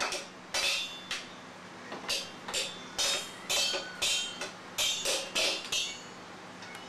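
A toddler banging on upturned stainless steel pots and pans used as a drum kit, about a dozen uneven metallic hits that ring briefly, stopping near the end.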